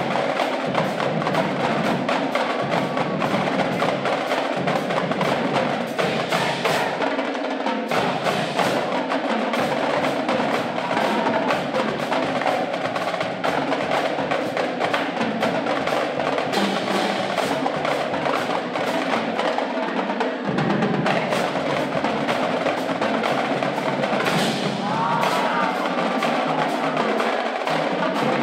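Marching drumline playing a fast, continuous cadence on snare drums, tenor drums and marching bass drums, with dense rapid stick strokes throughout.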